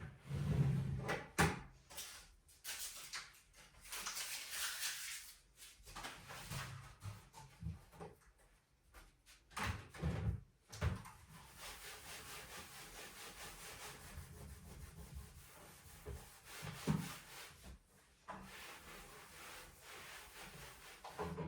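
Room being tidied by hand: objects rubbed, wiped and moved about, in irregular strokes, with a few knocks of things set down. No vacuum is running.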